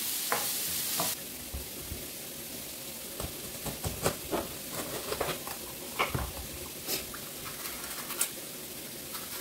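Diced red onions sizzling in olive oil in a frying pan as a wooden spoon stirs them. About a second in this gives way to a knife cutting a red bell pepper on a wooden cutting board: scattered crisp cuts and light knocks on the board.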